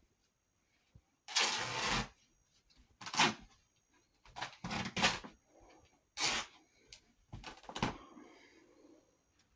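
T-shirt fabric being ripped apart by hand in a series of short tearing rips, about six in all, the longest about a second and a half in.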